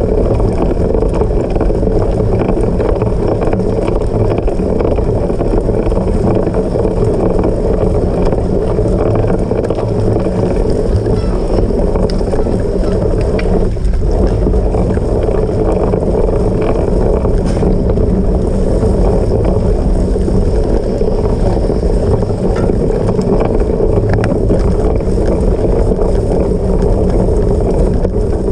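Steady wind rushing over the microphone of a camera riding on a cyclocross bike at race speed, mixed with the low rumble of the bike over rough off-road ground, with a few faint clicks.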